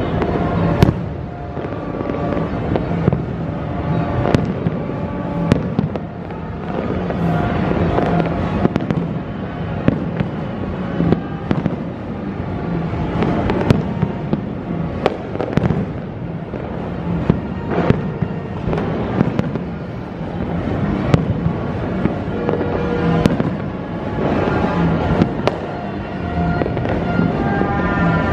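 Dense New Year's Eve fireworks and firecrackers going off without pause: a steady crackling din broken by sharp bangs about once a second, with music playing along underneath.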